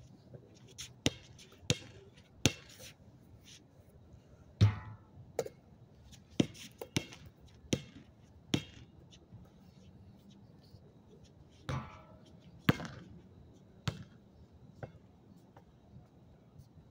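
A basketball bouncing on hard court surface: about a dozen sharp, irregularly spaced thuds, the loudest about four and a half seconds in.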